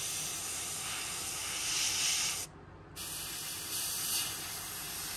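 Airbrush spraying paint in a steady hiss that cuts off for about half a second midway, then starts again.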